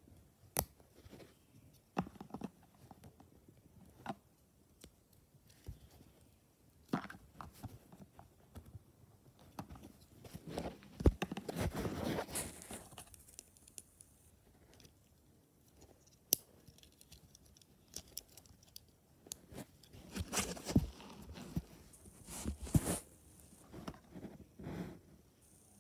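Plastic parts of a Beyblade spinning top being handled and turned, giving scattered sharp clicks, with two longer stretches of rustling and scraping about ten seconds in and again about twenty seconds in.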